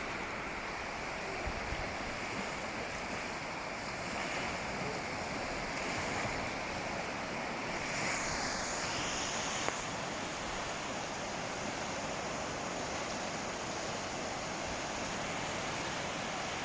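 Ocean surf washing onto a beach: a steady rush of waves, with one wave swelling louder and breaking about eight seconds in.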